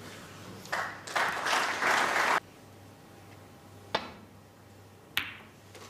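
Audience applauding briefly, cutting off abruptly, then a snooker shot: two sharp clicks of balls about a second apart.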